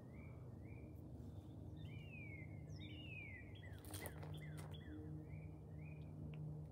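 Wild birds calling in woodland: one bird repeats a short rising note over and over, and another gives a few longer falling whistles around the middle. About four seconds in there is a brief cluster of clicks, all over a faint steady low hum.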